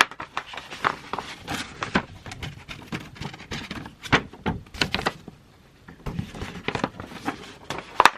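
Paper and card album contents being handled and pulled out of the packaging's pockets: irregular rustling, sliding and tapping, with a sharper tap near the end.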